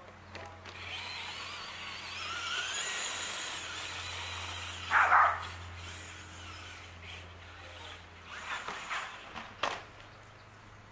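Electric whine of a Traxxas Slash RC car's brushless motor as it drives off across grass, its pitch rising and falling with the throttle. There is a brief loud burst about halfway through and a few sharp knocks near the end.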